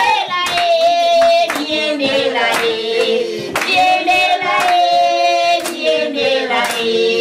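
A woman's voice singing a song with others joining in, and hands clapping about once a second to the beat.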